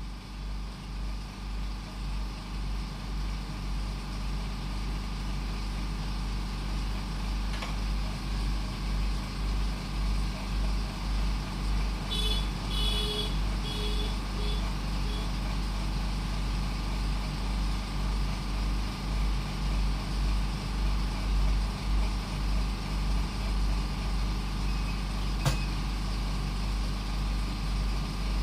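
Motor vehicle engine running steadily with a low, evenly pulsing drone. A short run of high beeps comes about twelve seconds in.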